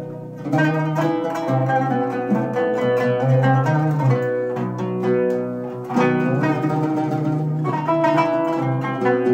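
Kanun and oud playing a duet, a fast stream of plucked notes. About two-thirds of the way through the music eases briefly, then comes back in strongly.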